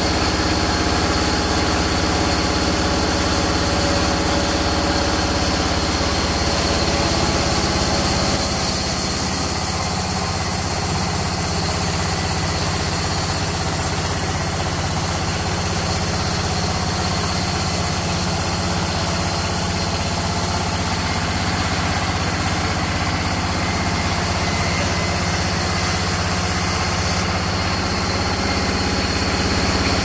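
A large belt-driven sawmill band saw runs steadily while a long mahogany slab is fed along its table. Its tone shifts slightly about nine seconds in.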